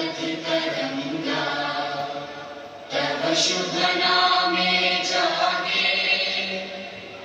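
A national anthem sung by a choir of many voices, heard from a television's speakers; it gets louder about three seconds in.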